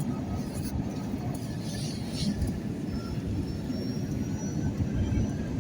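Steady low rumble of an airliner cabin, with a faint high whine in the middle.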